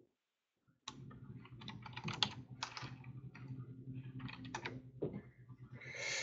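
Typing on a computer keyboard: quick, irregular keystrokes over a steady low hum, ending in a louder rustle.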